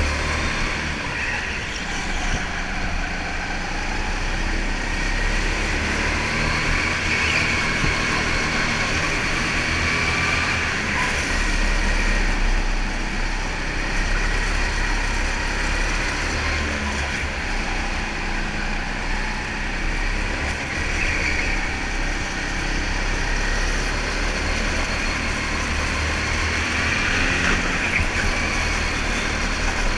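Go-kart engine running at speed, heard from onboard the kart with wind and track noise, its pitch rising and falling slightly as the driver works the throttle.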